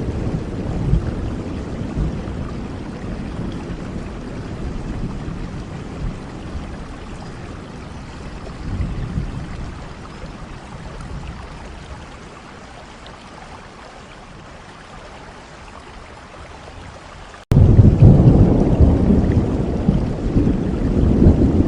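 Steady rain with a rolling rumble of thunder that fades away over the first half. Some seventeen seconds in, the sound cuts off abruptly and a fresh loud thunder rumble begins.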